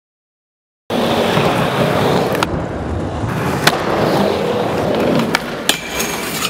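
Skateboard wheels rolling over an indoor skatepark ramp, starting about a second in: a steady rumble broken by a few sharp clacks.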